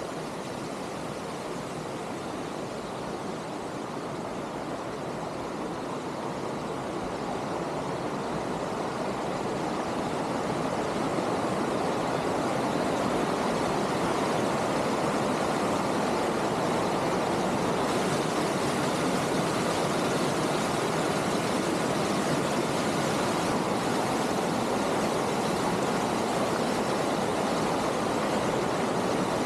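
Steady rushing noise that grows louder over the first ten seconds or so, then holds even.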